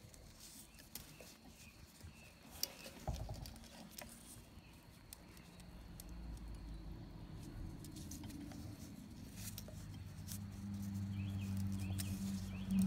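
Light metallic clicks and rustling of nitrile gloves as a piston's oil control ring is worked into its groove by hand. About halfway through, a low steady hum rises and grows louder toward the end.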